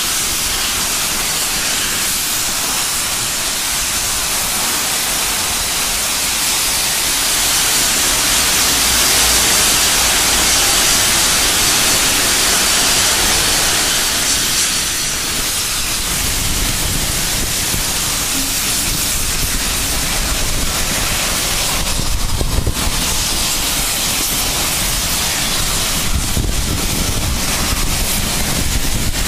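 Steady steam hiss from a steam locomotive, heard from a train carriage window. It is loudest about a third of the way in, and a low rumble joins it about halfway through.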